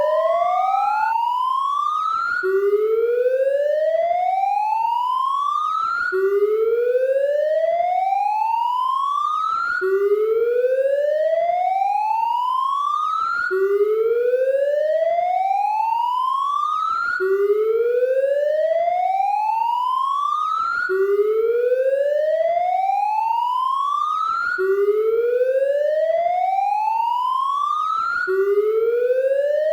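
Police car siren wailing, its pitch rising steadily for about three and a half seconds, then dropping abruptly back to the bottom and rising again, about eight times over.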